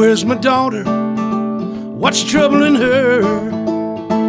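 Acoustic guitar playing with a man singing over it, in two wavering, drawn-out phrases: one at the start and a longer one from about two seconds in.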